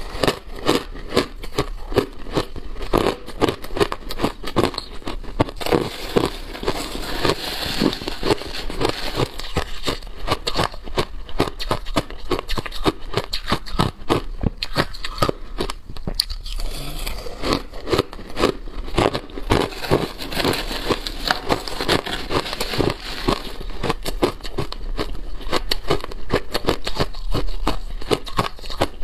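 Crushed ice being bitten and chewed: dense, rapid crunching and crackling that goes on almost without a break, with a short lull about sixteen seconds in.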